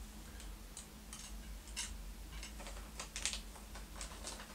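Irregular light clicks and ticks of small parts being handled: a humbucker pickup and its pickup ring being fitted together by hand, with a quick cluster of louder clicks about three seconds in.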